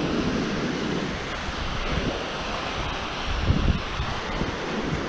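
Waves washing in at an inlet, with wind buffeting the microphone in uneven gusts, strongest a little past the middle.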